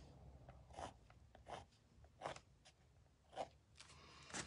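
Faint scratching of a Master's Touch 0.5 graphic pen drawing short whisker strokes on a painted canvas, about five quick strokes under a second apart.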